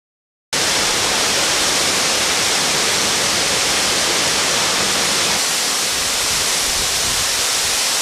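Tall waterfall pouring down a rock face: a steady, loud rush of falling water that cuts in suddenly about half a second in.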